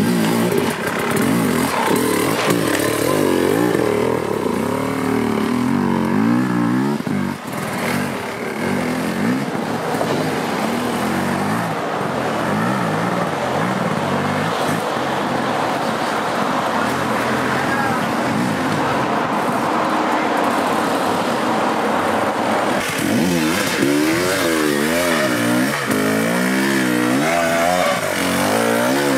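Enduro dirt bike engines revving hard over and over, the pitch rising and falling quickly as the throttle is blipped and released on steep rocky climbs.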